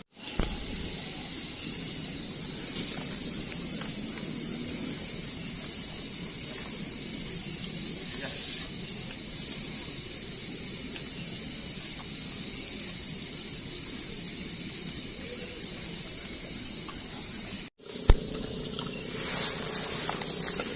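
Night-time insect chorus of crickets: a steady, high-pitched pulsing trill. It cuts out for a moment twice, at the very start and near the end.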